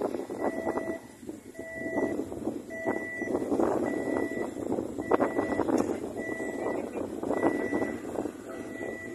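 Warning beeper on the lifting crane sounding a two-pitched beep about once a second, over the steady rumble and clatter of the crane machinery as it takes up the weight of the enclosed lifeboat.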